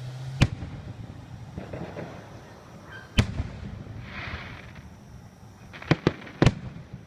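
Fireworks going off: five sharp bangs, one early, one about three seconds in, and three in quick succession near the end.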